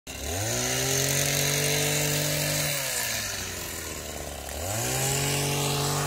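Powered hedge trimmer revving up to speed and holding steady, dropping back to idle about halfway through, then revving up again near the end.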